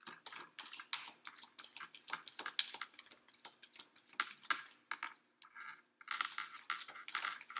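Tarot cards being shuffled by hand: a quick, continuous run of soft card flicks and clicks, with a short lull about two-thirds of the way through.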